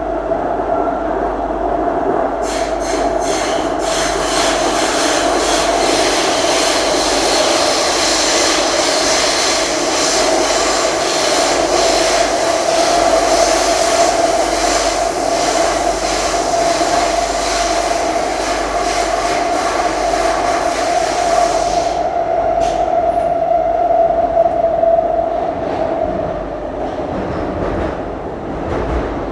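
Singapore MRT subway train heard from inside the carriage while running between stations, with a steady hum carrying a strong steady tone and a loud rushing noise. The rushing noise drops away about three quarters of the way through, and the sound gets quieter near the end.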